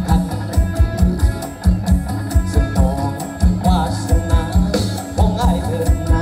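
A live Thai band played loud through a PA: a steady kick-drum beat and bass under guitar, with a singing voice carrying the melody.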